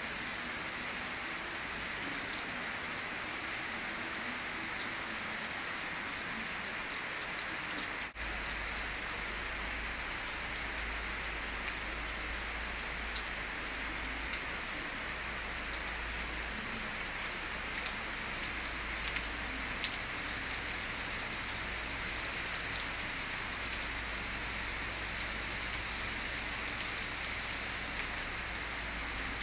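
Steady rain falling on roofs and a paved terrace: a continuous even hiss with the odd faint drop tick, broken by a brief gap about eight seconds in.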